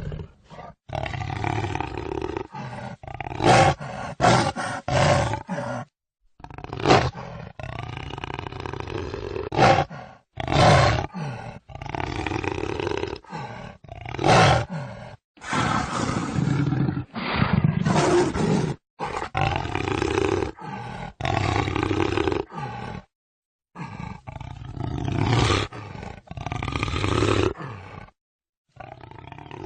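Jaguar roars, one after another, spliced together from several recordings with abrupt cuts and a few short silent gaps.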